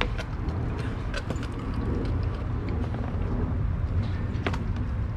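Dogs chewing on a deer carcass: scattered crunches and sharp cracks of teeth on bone and raw meat, over a steady low rumble.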